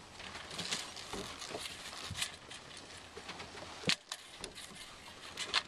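Small waves lapping and splashing against a sailboat's hull in an irregular run of soft splashes, with a sharper knock about four seconds in and another near the end.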